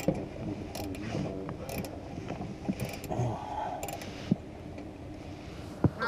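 Socket ratchet clicking in short runs about once a second as a bolt is backed out of a car's plastic engine undertray, with a sharper tick near the end.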